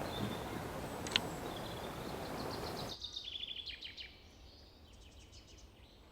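A small bird singing faintly, a rapid trill of short high chirps repeated twice over the second half, over an outdoor background hiss that drops away abruptly about three seconds in.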